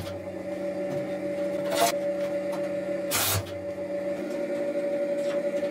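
MIG welder tack-welding thin steel rod: three short crackling bursts of the arc, one at the start, one near two seconds in and one a little past three seconds in, over a steady hum.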